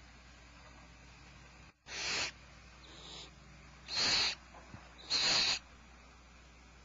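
Barn owls giving three harsh, hissing screeches, each under half a second long, with a fainter one between the first two.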